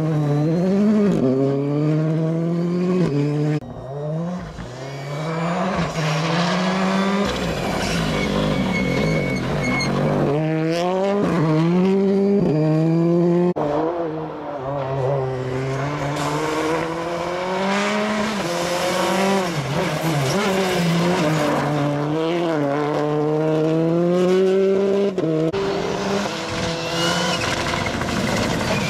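Rally cars at full throttle on a gravel stage, one after another. The engine note climbs and drops again and again as they shift through the gears, with sudden jumps where one passing car gives way to the next.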